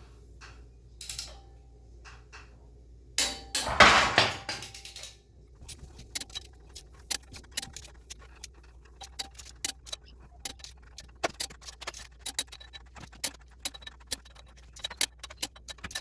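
Torque wrench ratcheting as flywheel bolts are tightened to 85 foot-pounds: runs of quick, sharp ratchet clicks, with a louder metallic clatter about three to four seconds in.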